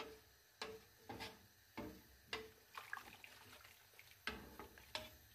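Wooden spatula stirring watery broth with chunks of chicken and vegetables in a large stainless steel pot: faint sloshing strokes with light taps, about one every half second.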